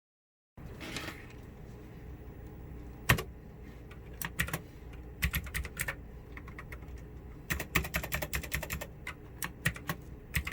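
Keys being pressed on a Pictek 87-key mechanical keyboard: scattered single clicks, the sharpest about three seconds in, then a quick run of key presses a little past halfway, over a low steady hum.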